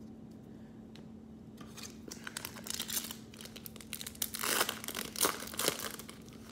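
Foil trading-card pack wrapper being torn open and crinkled by hand, starting about a second and a half in and loudest near the end.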